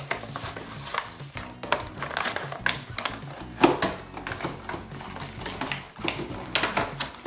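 Plastic blister packaging and cardboard backing crinkling and clicking in irregular bursts as a toy monster truck is worked out of its pack, with music playing in the background.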